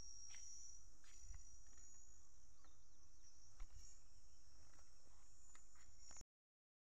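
Faint, steady high-pitched drone of insects chirring, with a low rumble and a few faint clicks beneath it. The sound cuts off abruptly about six seconds in.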